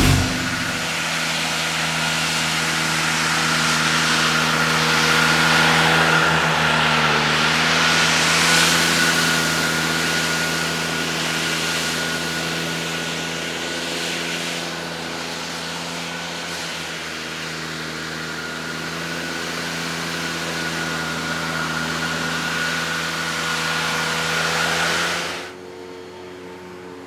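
Ventrac compact tractor driving an ET200 turbine-style blower, blasting leaves: a steady engine hum under a loud rush of air and a steady high whine. Near the end the air rush falls away sharply, leaving the engine running more quietly.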